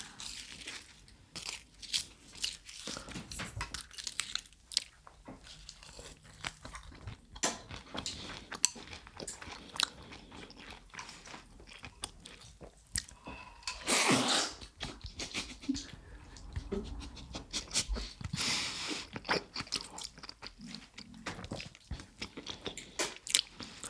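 Close-miked eating of miso udon noodle soup: wet chewing with many small mouth clicks, and two longer slurps of noodles, one about halfway through and another a few seconds later.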